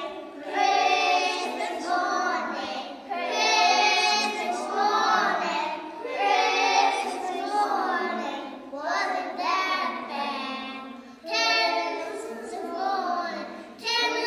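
A group of young children singing a Christmas song together, in sung phrases with brief pauses between.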